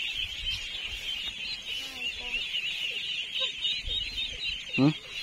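Dense, steady chorus of high-pitched chirping from small animals in the night fields, with a couple of soft low thuds from movement through the grass.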